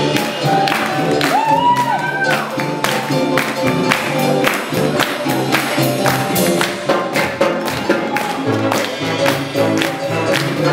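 Live brass band playing fast jazz: a sousaphone bass line steps under the horns over a steady, driving beat.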